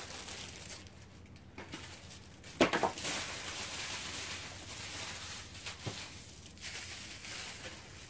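Packaging being set aside: a sharp knock about two and a half seconds in, then a few seconds of soft plastic-wrap rustling that slowly fades.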